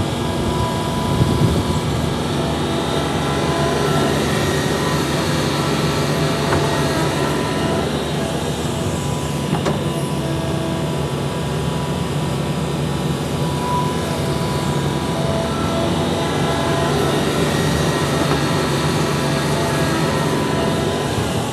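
Hitachi ZAXIS 350H excavator's diesel engine running steadily under working load, with a few steady whining tones through it. There are a couple of brief knocks, the loudest about a second in.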